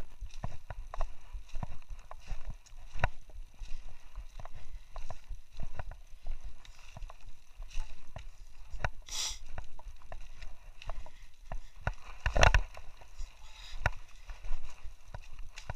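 Irregular crunches, knocks and rattles of someone moving along a rocky dirt trail, over a low rumble of wind buffeting a body-worn microphone. A louder scrape comes about nine seconds in and a loud thump about twelve and a half seconds in.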